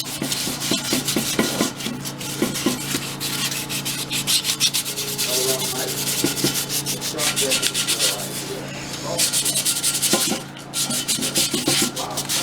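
Sandpaper rubbed by hand over car wheel rims, rapid back-and-forth scrubbing strokes. The scrubbing lulls briefly about nine seconds in and again about ten and a half seconds in.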